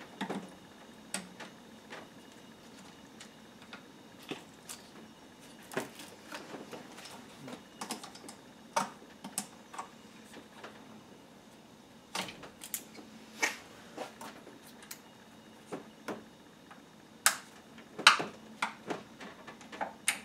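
Irregular clicks, taps and knocks of hands and hand tools working on plastic clips, hoses and connectors around a car's throttle body and intake manifold under the hood.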